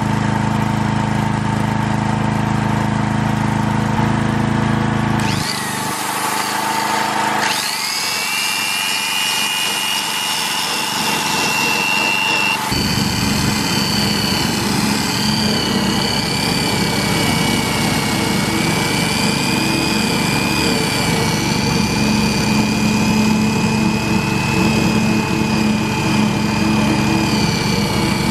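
A steady low drone stops about five seconds in. A Hitachi Koki electric polisher fitted with a cloth buffing wheel then spins up with a rising whine to a steady high motor tone. From about halfway on it runs buffing against a car's painted body panel: its tone drops slightly under the load and a rubbing hiss joins it.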